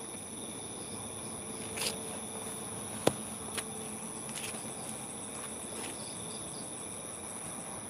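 Night insects, crickets, chirring steadily in a continuous high tone. A sharp click sounds about three seconds in, with a few softer ticks before and after it.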